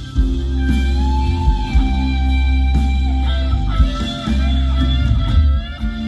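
Live rock band playing: an electric guitar lead with bent, gliding notes over sustained bass and drums, with a drum hit about once a second.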